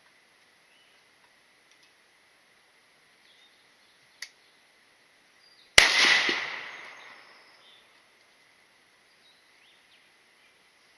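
A single gunshot from a firearm, its report dying away over about two seconds, with a faint click about a second and a half before it.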